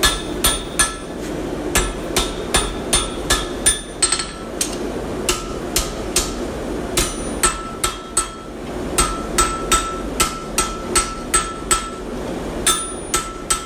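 Hand hammer striking hot flat bar on an anvil: sharp metallic blows in irregular runs of about two to three a second, each with a ringing note, with short pauses between runs. This is a blacksmith forging a horse-head shape from 20x6 steel flat bar.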